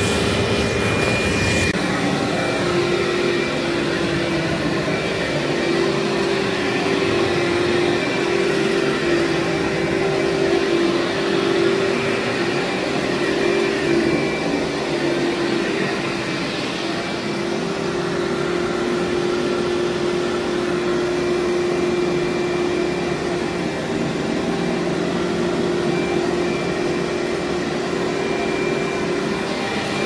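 Upright vacuum cleaner running steadily with a constant motor hum as it is worked over a very dirty carpet, picking up grit.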